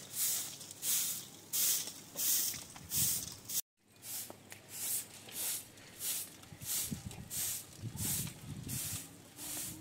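Short straw hand broom sweeping a dusty dirt yard: brisk swishing strokes, about two a second, briefly cut off just over a third of the way in.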